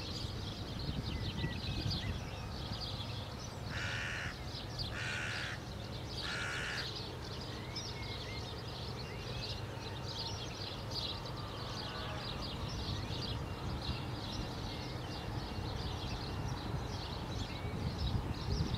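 A crow cawing three times, a little over a second apart, over a steady background of small songbirds chirping.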